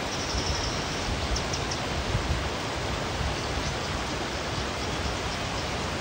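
Flowing stream water: a steady, even rush with no rhythm or breaks.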